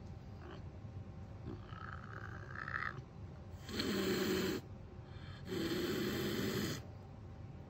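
Caracal hissing twice, each hiss harsh and about a second long, with a short pause between them.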